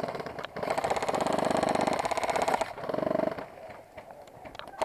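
Airsoft electric rifles firing on full auto: a two-second burst of rapid, evenly spaced clacks starting about half a second in, then a shorter burst around three seconds in.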